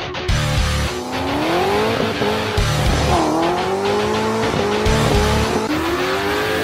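Car engines revving, their pitch repeatedly rising and falling, with tire squeal, mixed with music that has a heavy bass beat.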